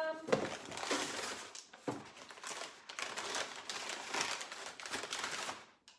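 Brown kraft paper packing crinkling and rustling as it is handled, with a few sharper crackles. It stops shortly before the end.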